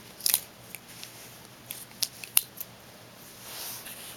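Small metal clicks and snaps of a Gerber Dime multi-tool being handled and unfolded to its pliers, about six separate clicks, then a soft rustle near the end.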